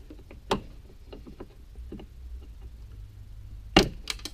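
Scattered clicks and light knocks of small plastic retaining clips being prised loose from the clutch fluid reservoir mount, with one sharp click about half a second in. Near the end comes a loud clatter with a second knock just after, as the loosened parts are dropped.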